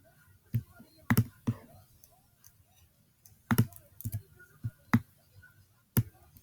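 Computer mouse and keyboard clicks: about ten sharp, irregular clicks, some in quick pairs and clusters, with quiet between them.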